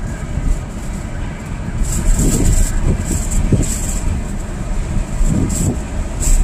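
Steady low road and engine rumble inside a car cruising at highway speed. From about two seconds in, irregular gusts of hiss come and go over it.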